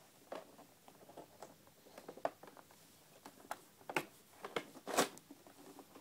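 Handling noises: scattered light clicks, knocks and scrapes, with the strongest knock about five seconds in.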